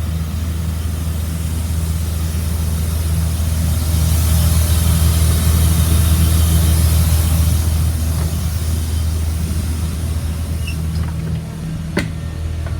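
School bus Caterpillar diesel idling steadily, with a high hiss of compressed air leaking from the air system under the bus that grows louder in the middle. A single sharp click near the end.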